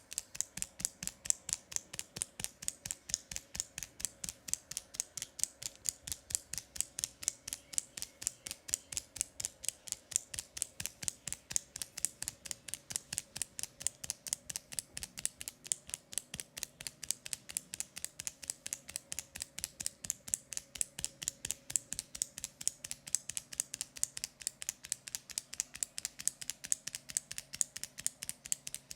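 Rapid, even clicking, about five sharp, bright clicks a second, kept up without a break.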